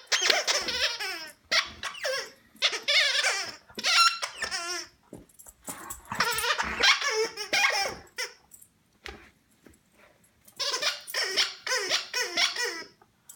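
A Labradoodle at play with a stuffed squeaky snake toy: high-pitched, wavering squealing in about six bursts with short pauses between, the longest about six seconds in.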